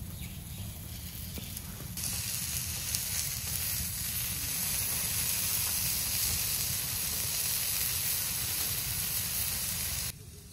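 Pancakes sizzling in a cast-iron skillet on a small wood-burning camp stove: a steady hiss that gets much louder about two seconds in and drops back just before the end.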